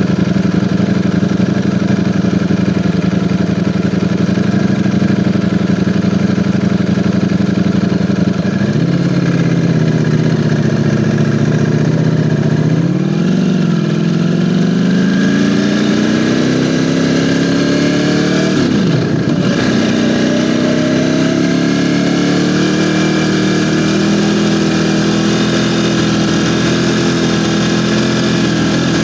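Ducati Panigale V4 motorcycle's V4 engine under way: a steady note for the first several seconds, then the pitch drops, climbs over several seconds as it accelerates, dips sharply for a moment as it shifts up a gear about two-thirds of the way in, and settles at a steady higher note.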